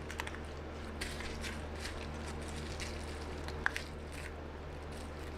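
A knife blade scraping and picking at leftover shards of broken iPad digitizer glass stuck to a metal home-button bracket: a string of faint scratches and small clicks, with a steady low hum underneath.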